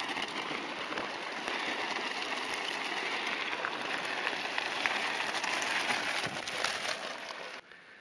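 Mountain bike tyres crunching over loose gravel as riders pass close by: a steady crackling hiss full of fine clicks that cuts off suddenly near the end.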